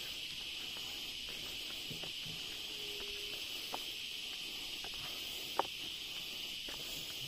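Steady high-pitched insect chorus buzzing without pause, with a few faint sharp clicks, the loudest a little past halfway.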